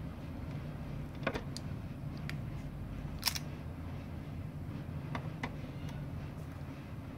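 A few light plastic clicks and knocks from handling an American Weigh Scales PS-25 digital postal scale, the loudest about three seconds in, over a steady low hum.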